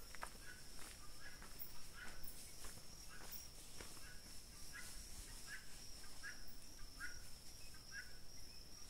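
A steady high-pitched insect drone, with faint footsteps on a dirt road repeating about every half second beneath it.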